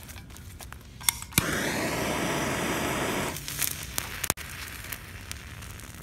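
An iron oxide and aluminium thermite charge in a brick igniting with a couple of sharp pops, then burning with a loud hiss for about two seconds. The hiss cuts off, and a few scattered pops and crackles follow as it dies down.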